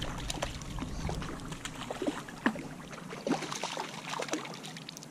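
Water splashing and sloshing as a hooked trout thrashes at the surface, with irregular sharp splashes that come thickest a little past halfway.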